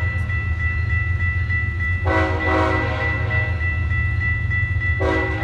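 Diesel locomotive multi-chime air horn sounding short toots: two quick blasts about two seconds in and another beginning near the end, over a steady low rumble.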